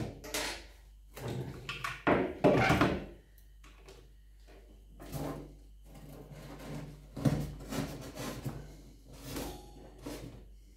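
Handling noises: irregular rustles, scrapes and light knocks as hands move wires across the foam incubator lid and down to a small battery.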